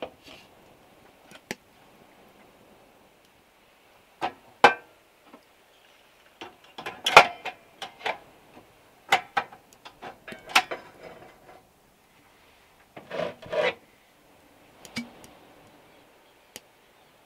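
Separate clicks, knocks and short clatters of cooking gear handled on a wooden counter: a butane canister being fitted into a portable gas stove and a frying pan set on its burner. The loudest knocks come about seven seconds in.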